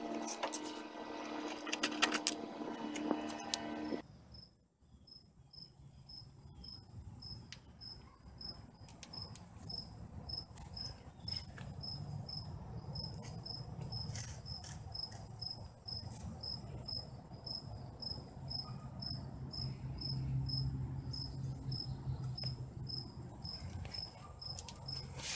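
A cricket chirping steadily, about two high chirps a second, over a faint low rumble. In the first few seconds a louder steady humming, scraping sound with clicks cuts off about four seconds in.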